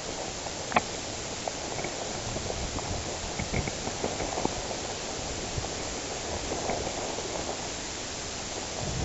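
Footsteps and rustling of a person moving over rough ground, with scattered soft knocks and one sharp click about a second in, over a steady outdoor hiss.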